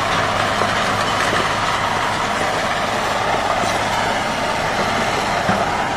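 A vehicle engine running steadily at low revs, a constant even hum with no changes in speed.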